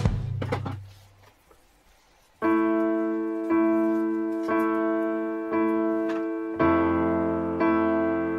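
Background music: a guitar-and-drums track fades out, and after a short gap a piano starts playing repeated chords, one about every second.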